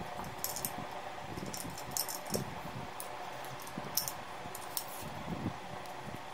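Light metal clinks and jingles of a rear brake rod and its adjuster nut being handled and threaded onto the drum-brake arm of a Honda CG 125, a dozen or so scattered ticks over a steady background hum.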